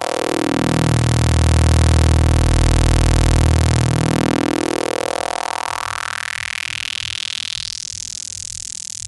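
Square wave through a God's Box Gem four-pole high-pass filter with a little resonance, its cutoff swept down and back up. The resonant peak is heard as a falling, then rising whistle. The sound is fullest and loudest about two seconds in, when the bass opens up, and thins to a high whistle near the end.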